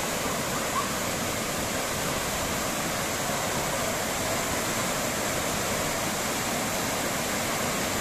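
Waterfall and stream water rushing and cascading over rocks: a steady, unbroken rush of water.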